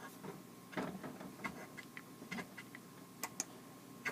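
Fingers tapping on an iPad's touchscreen: faint, irregular light ticks and taps, about a dozen of them.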